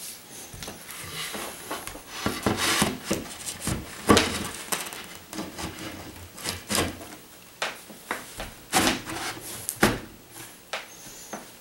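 Particleboard furniture panels being handled and pushed together onto wooden dowels: irregular wooden knocks and scraping, with the sharpest knocks about four and nine seconds in.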